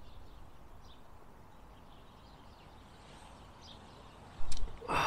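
Quiet outdoor ambience with a few faint bird chirps, then a sudden loud noise near the end.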